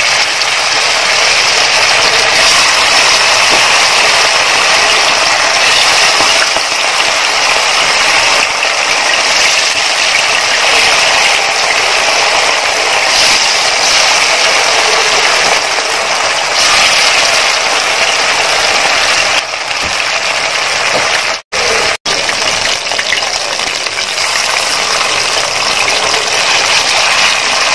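Cornflour-and-rice-flour-coated chicken 65 pieces deep-frying in hot oil, a loud, steady sizzle. It cuts out twice, very briefly, about three-quarters of the way through.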